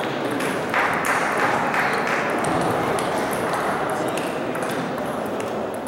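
Table tennis rally: the ball clicking sharply off the rackets and the table in a quick run of hits, over a steady background of voices in the hall.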